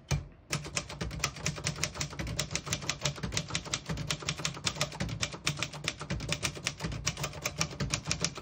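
1965 Singer Scholastic manual portable typewriter being typed on at a steady pace: a rapid, even run of key strikes, about six a second, starting about half a second in.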